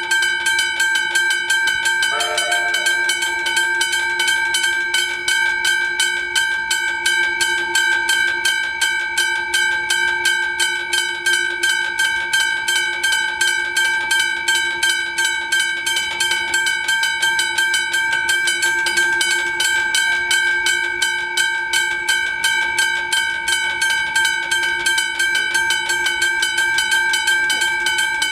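Railway level crossing warning bell ringing in fast, even strikes, a few a second and without a break: the crossing's alarm sounding while its lights flash for an approaching train.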